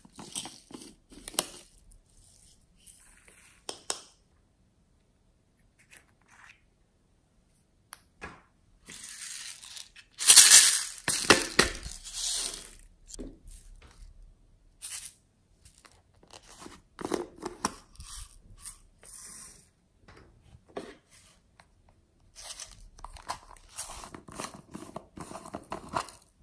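Hands squishing, stretching and pulling apart slime in short, irregular bursts, with silent gaps between. A longer, louder spell comes about ten seconds in.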